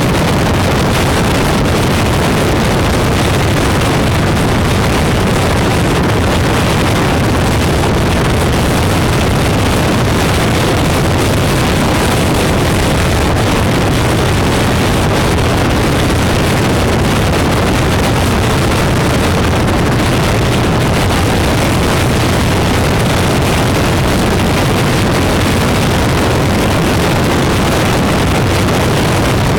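Motorcycle riding at a steady pace: wind rushing over the bike-mounted camera's microphone, with the engine running underneath in an unbroken low drone.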